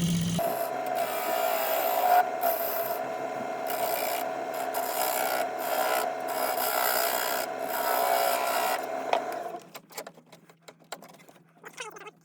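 Turning tool cutting a tenon into a spinning green log on a wood lathe: a steady scraping rasp over the lathe's hum. The cutting stops about nine and a half seconds in, leaving the lathe running more quietly.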